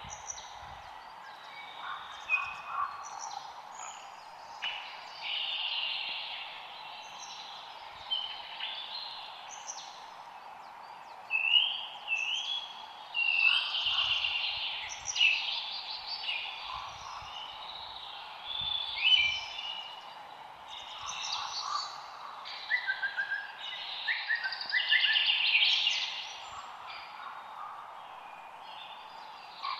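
Forest ambience: several birds singing and calling in short, overlapping chirps and trills, busier in the second half, over a steady background hiss.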